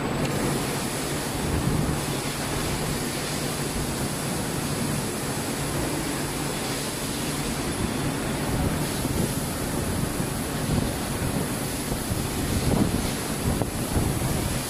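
Steady factory machinery noise: a constant low hum under an even rushing noise, with a faint high-pitched whine.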